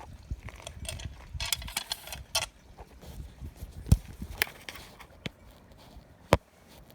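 Clattering of metal parts being worked into place on a 50cc mini motorbike: a rattling scrape about a second and a half in, then scattered clicks and two sharp knocks, one about four seconds in and one past six seconds.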